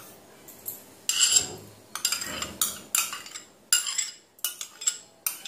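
Metal spoon scraping and clinking against the inside of a bowl in a series of short, irregular strokes, starting about a second in, as thick curd is scraped out.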